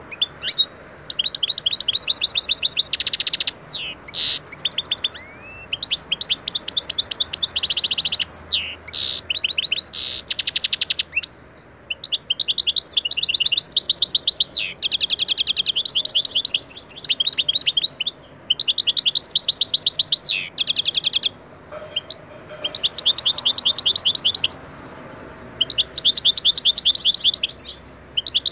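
European goldfinch singing: phrases of rapid, twittering trills made of fast repeated high notes, broken by short pauses, with a few quick sliding whistles in the first few seconds.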